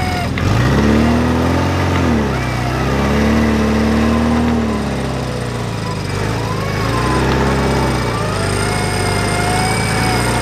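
Suzuki Sidekick 4x4's engine revving in about four surges, the pitch climbing, holding for a second or two and dropping back each time.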